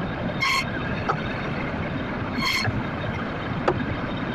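Steady noise of busy traffic, with two short high-pitched beeps and a couple of sharp knocks.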